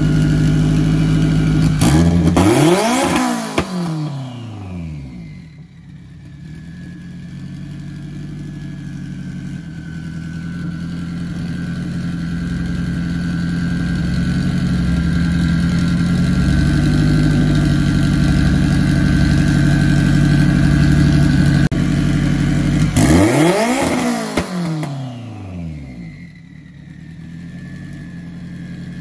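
Cars driving past close by, twice, each time with a downward sweep in pitch as it goes by. In between, an engine runs steadily and slowly grows louder, with a thin steady whine over it.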